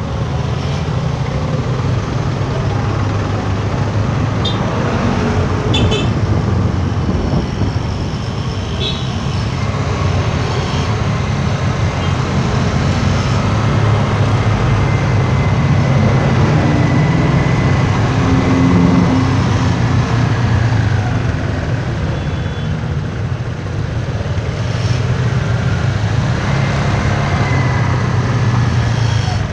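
Traffic noise in slow, congested traffic of scooters and cars, over a steady low engine hum from the motorbikes close around. A few faint clicks sound early on.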